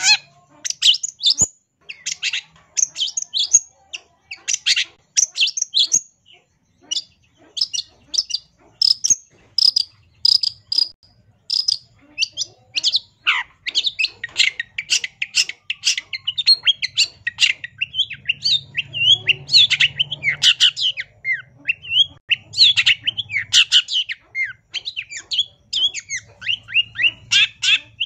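Long-tailed shrike (cendet) singing a fast, varied chatter of short high notes almost without pause, growing denser about halfway through: a bird in full song with a rich, varied repertoire.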